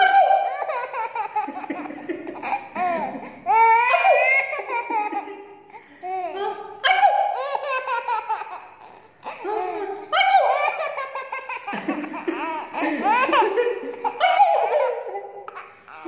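Baby laughing: high-pitched belly laughs coming in several bouts with short pauses between.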